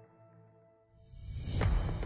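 Soft film-score tones fade away, then about a second in a rising whoosh builds into a loud, deep hit with a low rumble: a cinematic transition sound effect.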